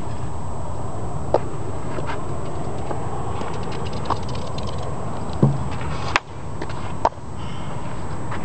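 Steady outdoor background noise, with a few sharp clicks scattered through and a dull thump a little past halfway.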